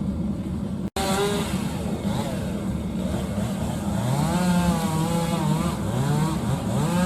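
Two-stroke chainsaw running at a tree, its engine revving up and down so the pitch repeatedly rises and falls, with bigger swings in the second half.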